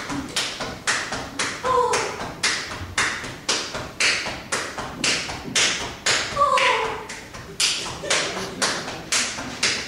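A steady rhythm of sharp taps, about three a second, each trailing off in echo. Twice a voice gives a short falling sigh.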